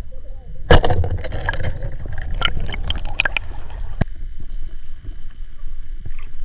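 Water sloshing and splashing, with a sharp knock about a second in followed by scattered clicks and splashes.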